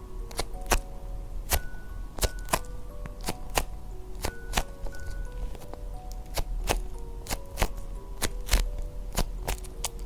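Background music playing a light melody of held single notes, with frequent sharp clicks and taps at an uneven pace over it.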